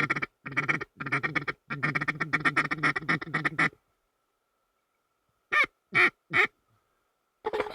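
Duck quacking: a long rapid run of quacks, then three separate short quacks that fall in pitch, and a few more near the end.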